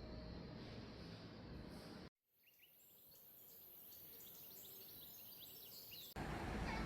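Outdoor ambience in edited pieces: a steady low rumble, a sudden cut about two seconds in, then small birds chirping over a steady high hiss, then a cut back to low rumble near the end.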